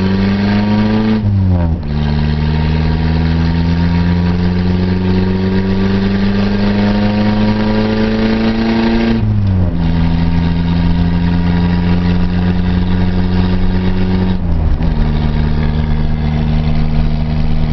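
Toyota Tercel wagon's four-cylinder engine and exhaust, fitted with a Harley-Davidson motorcycle silencer, heard from inside the car while accelerating through the gears. The engine pitch climbs, drops at a gear change about a second and a half in, climbs slowly for several seconds, drops again at shifts about nine and a half and fourteen and a half seconds in, then holds steady at cruising speed.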